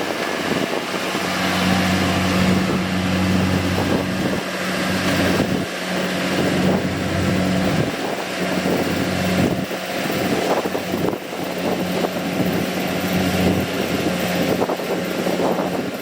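Kubota DC-70G PRO combine harvester running steadily, a diesel engine hum under a broad rushing noise from the machine.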